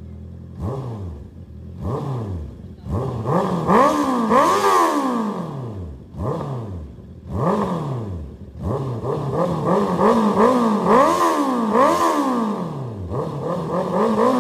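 Honda CB650R's inline-four engine, breathing through an aftermarket Drift Xaust full exhaust system, being revved in neutral in a quick series of throttle blips. Each blip rises and falls in pitch, and several come in rapid succession.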